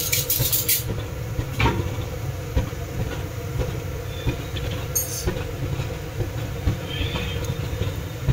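Steady low rumble of a lit gas-stove burner under an iron kadhai of heating mustard oil. Short spitting hisses from the oil come at the start and again about five seconds in.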